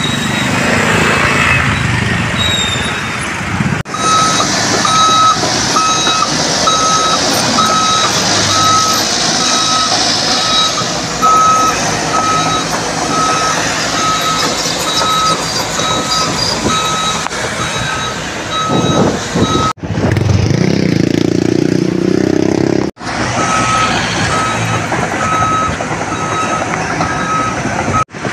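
Backup alarm on heavy construction equipment beeping at a steady pace, about one and a half beeps a second, over the continuous rumble of engines and traffic. The sound drops out abruptly a few times, and the beeping stops for a few seconds past the middle before starting again.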